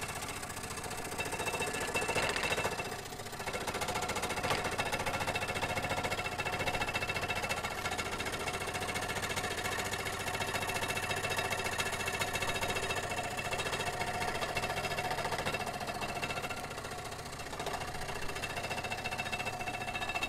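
Scroll saw running steadily, its blade cutting a curved line through a piece of cedar.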